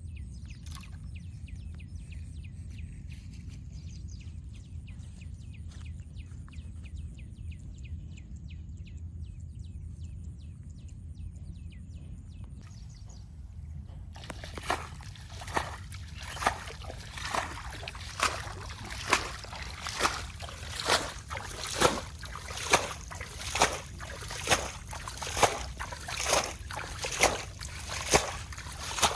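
A steady low rumble with faint ticking. From about halfway, water splashes in a regular rhythm, roughly once a second, getting louder.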